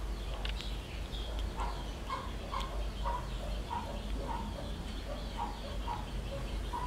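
Chicken clucking in a steady run of short notes, about two a second, starting about a second and a half in, over a low steady hum.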